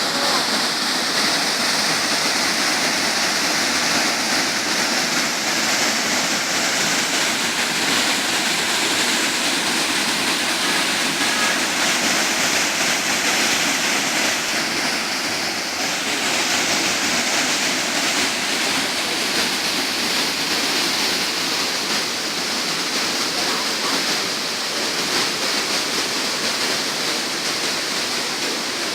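Waterfall pouring steadily into a shallow pool below: an even, unbroken rush of falling water, at the low dry-season flow.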